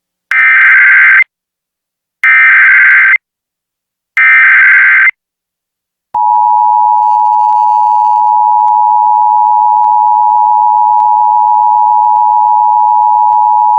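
Emergency Alert System header: three short bursts of SAME data tones about two seconds apart, then, after a gap of about a second, the steady two-tone EAS attention signal starts and holds. Together they mark the start of a new alert, here a flash flood warning.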